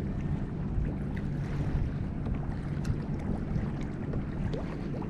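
Wind rumbling on the microphone, with small waves lapping against a plastic kayak hull and a few faint ticks.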